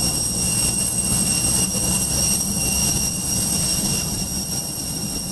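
Aircraft jet turbine running steadily: a high whine made of several steady tones over a low rumble.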